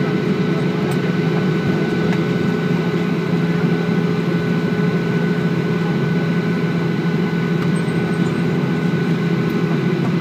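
Steady cabin noise inside a Boeing 737-800 taxiing after landing. Its CFM56 engines run at idle as a low drone, with a few steady whining tones above it.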